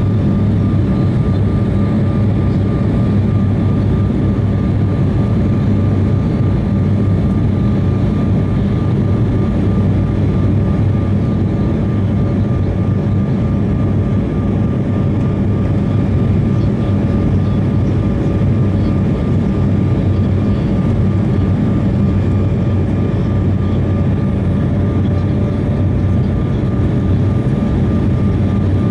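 Steady cabin noise of an Embraer regional jet in flight: a constant deep rumble of turbofan engines and airflow, with a thin steady whine from the engines over it.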